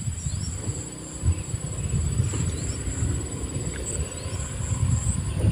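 Wind rumbling and buffeting on the microphone, with a steady high-pitched insect trill behind it and a few faint short rising chirps.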